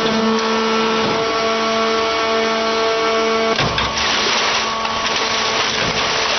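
Hydraulic drive of a ŽĎAS CPB 100 mobile scrap baling press running with a steady whine. About three and a half seconds in, the sound changes suddenly to a noisier mechanical rush with the whine fainter.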